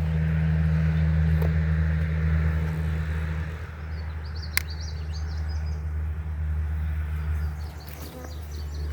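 Honeybees buzzing around an open hive: a steady droning hum, louder for the first few seconds. There are faint bird chirps and one sharp click about halfway through.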